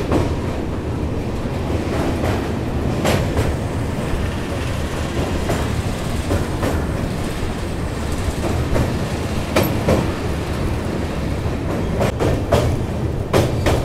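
Amrapali Express passenger train running over a river bridge: a steady heavy rumble of wheels on rails, with sharp clacks from the rail joints every second or so.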